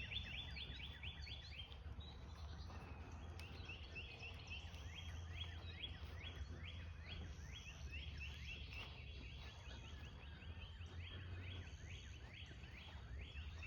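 Birds chirping in rapid runs of short, high, downward-sliding notes, about six a second, over a faint steady low hum.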